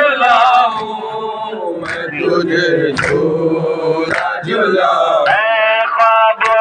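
Men's voices chanting a noha, the Shia mourning lament, in long held sung lines. Sharp slaps of hands beating chests (matam) cut in a few times.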